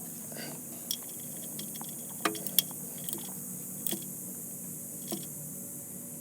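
Tools and small metal parts being handled: about half a dozen light clinks and knocks, two of them louder about two and a half seconds in, over a steady low hum.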